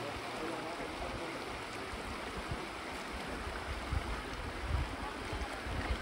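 Flood-swollen river rushing steadily past, with irregular low rumbles in the second half.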